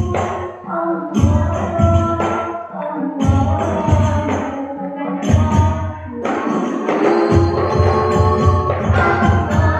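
Hadroh ensemble of girls playing rebana frame drums in a rhythmic pattern, with a melody held over it in the mid range, likely sung. The low drumming drops out briefly about half a second in, again around three seconds, and for about a second around six seconds in.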